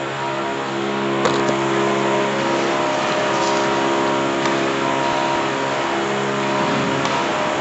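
Concrete sanding machine running steadily: a constant motor hum under an even rushing noise.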